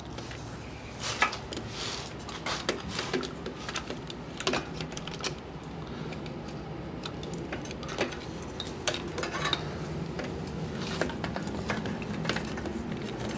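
Irregular clicks, knocks and light metallic clinks of a camera being handled and repositioned among the engine-bay parts.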